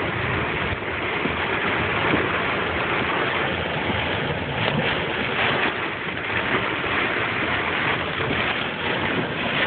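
Heavy storm precipitation from a hailstorm pelting the car's roof and windshield, heard from inside the cabin as a loud, dense, steady rushing and drumming.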